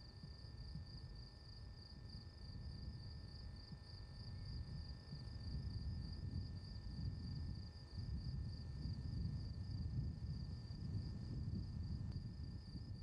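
Crickets chirping in a steady, fast-pulsing high trill, with a low rumble underneath that builds up partway through.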